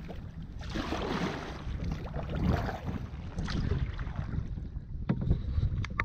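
Wind rumbling on the microphone while a kayak paddle splashes into choppy water in surging strokes, with a few sharp clicks of drips or paddle knocks near the end.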